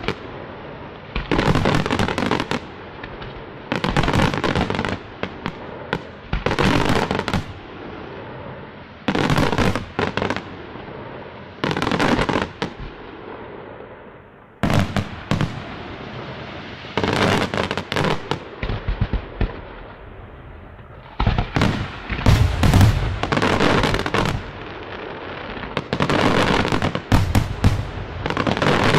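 Aerial fireworks display: shells and comets going off in dense clusters of bangs every two to three seconds, with a quieter noisy tail between clusters. In the last third the bangs come almost without a break.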